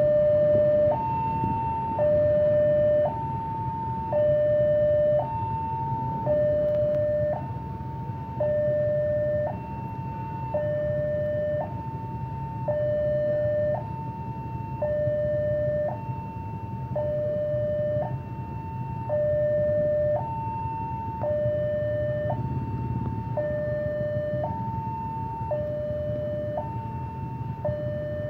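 Electronic railway level-crossing warning alarm sounding a two-tone ding-dong, a low and a higher tone alternating about once a second, the higher tone louder. Underneath it the motorcycle engines of the waiting traffic idle with a low hum.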